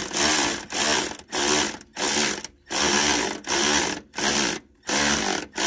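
Milwaukee cordless ratchet run in short trigger bursts, roughly two a second, driving the shock absorber's upper mounting nut down. The nut is being snugged bit by bit until the rubber bushings just pinch, not overtightened.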